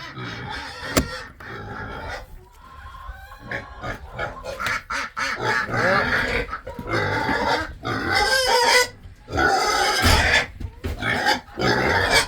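Hungry pigs yelling and screaming for food at feeding time: loud, irregular calls that bend in pitch, one after another.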